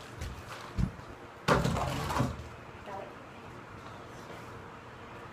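A soft thump about a second in, then a louder knock followed by a short rustling clatter about a second and a half in; otherwise quiet room.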